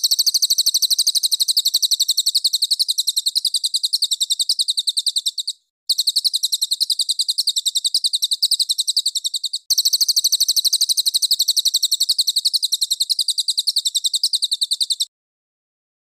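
Recorded songbird call used as a training 'master' for caged birds: a high-pitched, very rapid trill of repeated chirps, about ten a second, in three runs of four to five seconds with short breaks between them.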